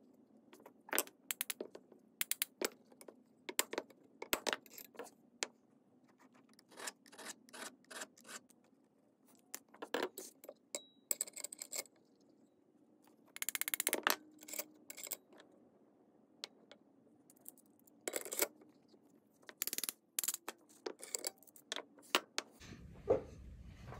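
Metal clicks and short scrapes of a Galil rifle bolt being worked in its steel receiver: seated, rotated into lock against the chamber face and drawn back out, in irregular bursts, to leave witness marks on the marker-coated locking lugs. A low rumble starts near the end.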